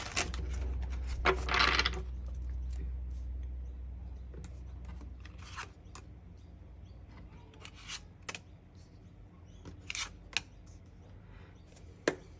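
Tarot cards being handled and shuffled: scattered light taps and slides of cards, with a short rustle about two seconds in. A low hum fades out over the first few seconds.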